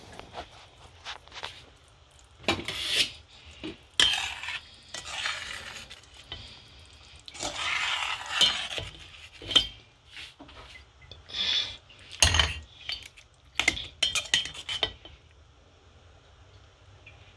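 Long metal spoon stirring and scraping in a stainless steel pot of stew, clinking against the pot's sides in irregular bursts, quieter for the last couple of seconds.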